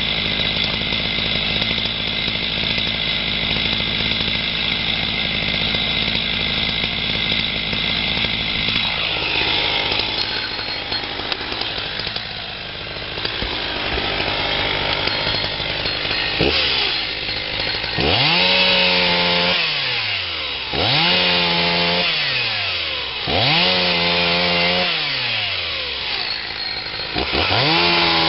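Chainsaw running steadily at high revs for the first several seconds, then revved up and let fall back about every three seconds, four or five times, as it cuts firewood logs.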